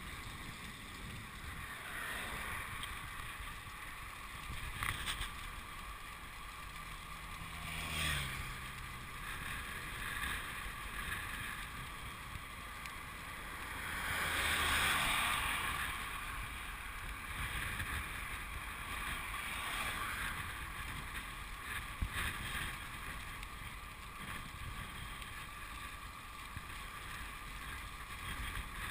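Wind rushing over the microphone of a camera carried on a moving bicycle, a steady rushing noise with a louder swell about halfway through.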